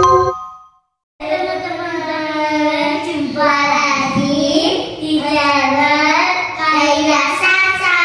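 Children singing together in long held notes, starting just after one second. Before that, the last bell-like notes of a chiming jingle fade out.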